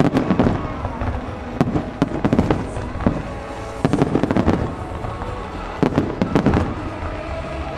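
Aerial firework shells bursting in rapid volleys during a large display's finale: dense clusters of sharp bangs about every second or two, over a continuous rumble.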